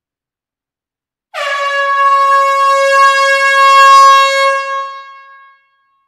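Air horn sounding one long blast of about four seconds: a single steady note with many overtones, starting about a second in and tailing off near the end, sounded in an enclosed hall.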